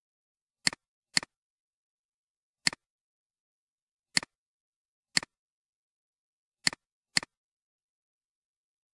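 Computer mouse clicking: seven sharp clicks, two of them in quick pairs half a second apart, each with a softer release click right after.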